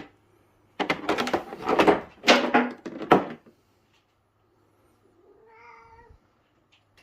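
A cat meowing: a run of loud cries in the first few seconds, then one quieter meow near the end.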